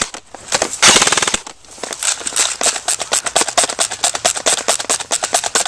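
Airsoft electric rifles firing on full auto: a short, very fast burst about a second in, then a long run of rapid, uneven shots.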